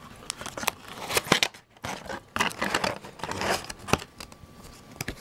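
Trading card box packaging being handled and opened by hand: crinkling cardboard and paper with irregular sharp clicks and scrapes.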